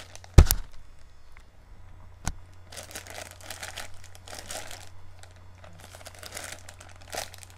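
Plastic mailer bag crinkling in repeated bursts as it is pulled and twisted to tear it open. A sharp knock, the loudest sound, comes about half a second in, and a smaller click about two seconds later.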